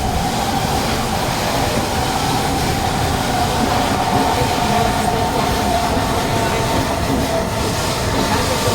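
Kawasaki C151 metro train running between stations, heard inside the carriage: a steady rumble of wheels on the track with a steady high whine that drifts slightly in pitch.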